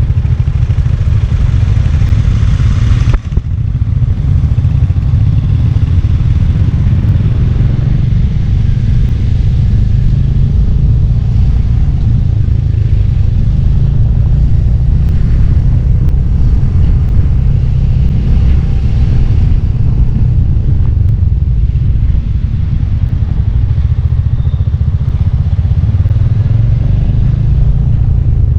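Royal Enfield Hunter 350's single-cylinder engine and exhaust running with a steady, loud, deep rumble. The sound dips briefly about three seconds in, then carries on much the same.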